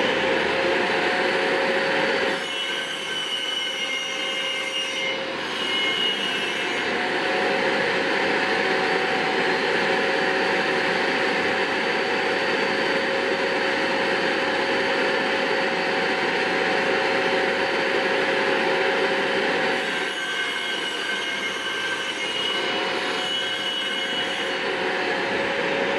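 Circular saw running steadily with a constant whine as it is pushed along the guide rail, cutting a 45-degree miter through a sheet panel.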